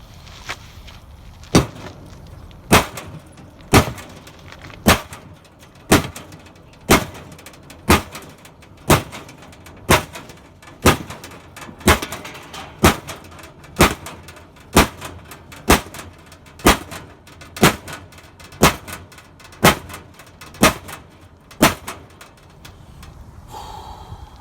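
Hammer blows on the metal of an air conditioner unit, about twenty strikes at an even pace of roughly one a second, each with a short ring. The hammering knocks the compressor loose from the unit.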